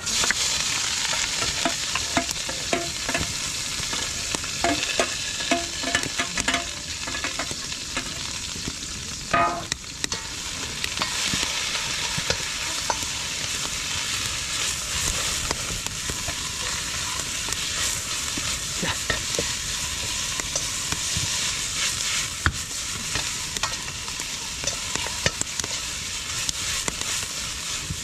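Food frying in a very hot Chinese wok with a loud, steady sizzle that starts suddenly as the ingredients go in, with many sharp metallic clicks and clatters of the ladle or spatula against the wok as it is stirred and tossed.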